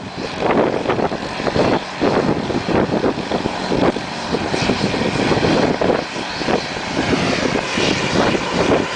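Haboob wind blowing hard in gusts, a loud rushing noise that swells and eases every second or so.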